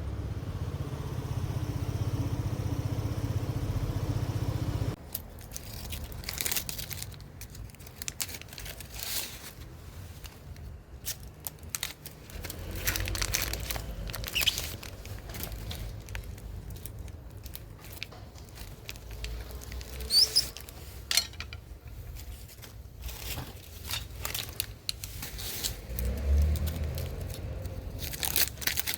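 A steady low rumble for about the first five seconds, stopping suddenly. Then irregular tearing, crinkling and scraping with sharp clicks, as insulation and tape are stripped off aluminium air-conditioner refrigerant piping.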